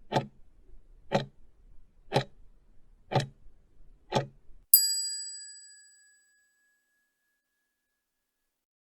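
Countdown timer sound effect: five clock ticks, one a second, then a bell ding that rings out and fades over about a second and a half.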